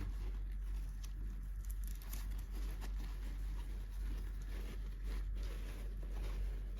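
Small packaging and toy pieces being handled: light scattered taps, clicks and rustles over a steady low hum.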